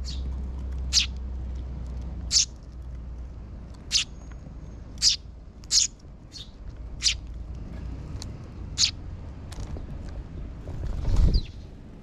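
Eurasian tree sparrows giving short single chirps about once a second, with a brief flutter of wings close by near the end.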